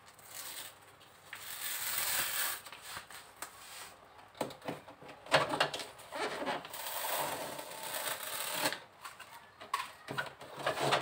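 Foil-faced heat-insulation sheet crinkling and rustling as it is pressed and smoothed by hand onto the underside of a car bonnet, with scattered sharp clicks.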